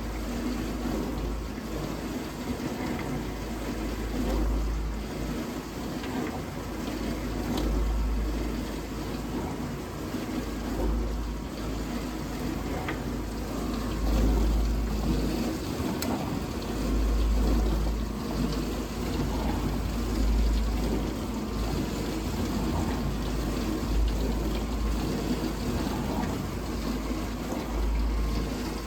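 Vintage dishwasher running a wash cycle: the pump motor hums steadily while water swishes inside the tub. The water seems not to hit the tub at full force, which the owner takes for a restricted pump.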